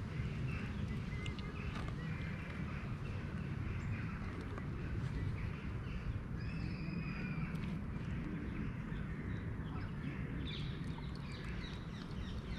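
A kitten chewing and crunching dry kibble from a plastic tub in a run of small irregular clicks. A steady low rumble and a few high chirps sit in the background.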